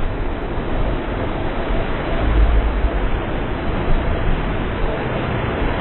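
Steady rumble and rushing noise of a bus travelling over a wet road surface, its tyres running through standing water.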